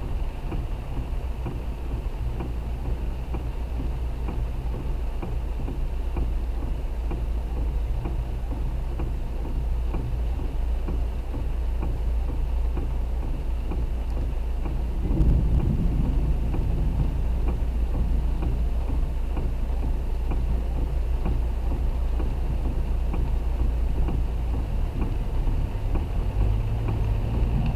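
Steady low rumble of a car driving on a wet road in heavy rain, heard from inside the cabin, with a hiss over it. The rumble grows louder about halfway through.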